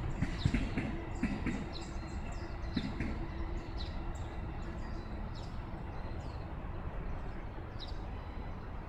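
Electric train's wheels clacking over rail joints as it passes and fades away over the first three seconds, with a low hum dying out. Small birds chirp in short, repeated calls throughout.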